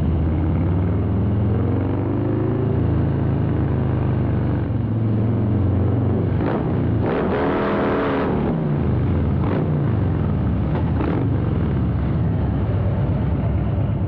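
Harley-Davidson Breakout's Milwaukee-Eight 117 V-twin running through a Rinehart exhaust while riding. The engine note rises a second or two in. A louder rush swells and fades around the middle.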